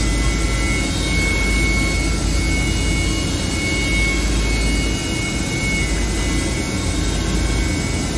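HT-1325RBS ATC CNC router spindle running and cutting a wooden panel: a steady high whine over a continuous low rumble from the machine's extraction and running gear.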